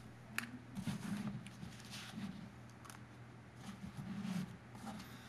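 Faint meeting-room tone: a steady low hum with scattered small clicks and knocks and a few soft, muffled low sounds.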